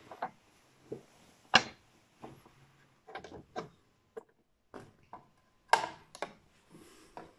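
Wooden kamishibai paper-theatre stage being opened: its top panel lifted and its hinged wooden doors swung open, giving a string of scattered wooden knocks and clicks. Two knocks stand out, one about one and a half seconds in and one about two-thirds of the way through.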